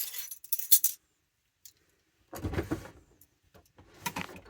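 A spoon stirring chili ingredients in a small crock pot, scraping and clinking against the pot in several short bursts.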